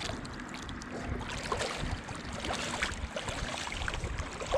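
Shallow water sloshing and lapping, with scattered small ticks and knocks.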